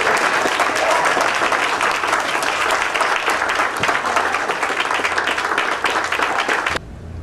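Audience applauding, a dense round of clapping that cuts off suddenly near the end.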